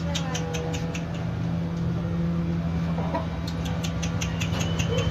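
Kandhari Aseel rooster clucking, over a steady low hum, with two short runs of sharp clicks.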